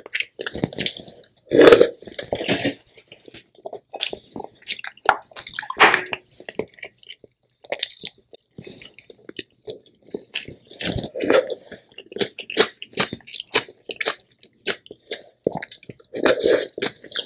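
Close-miked wet chewing and lip smacks of someone eating sauce-coated crab meat from her fingers, with squelches of fingers in the seafood-boil sauce. The sounds come as many short, irregular smacks and clicks, the loudest about two seconds in.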